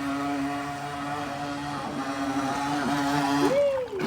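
Small motor of a radio-controlled boat running with a steady whine. The pitch dips briefly twice, then swings up and back down near the end as the throttle changes.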